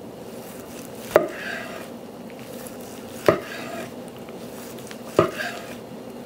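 A long slicing knife cutting slices from a smoked flat iron steak, knocking on the wooden cutting board three times about two seconds apart, each knock followed by a brief scrape as the blade finishes the cut.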